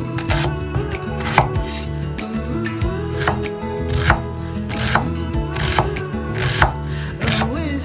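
A kitchen knife chopping food, with sharp strokes roughly once a second, under background music.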